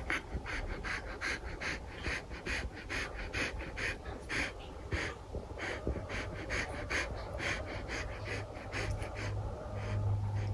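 A dog panting rapidly: short, even breaths, about three a second.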